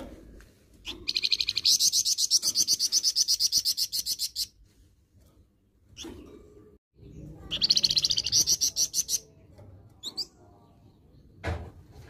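Caged flamboyan songbird singing its harsh song: a rapid, rattling trill of about ten notes a second lasting some three and a half seconds, then a second trill of about two seconds, with short single calls between.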